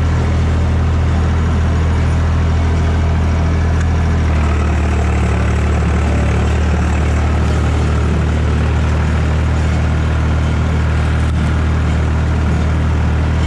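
Massey Ferguson 245 tractor engine running steadily at working speed while its rotary cutter (bush hog) mows tall grass, heard from the driver's seat. The engine note shifts slightly about four seconds in.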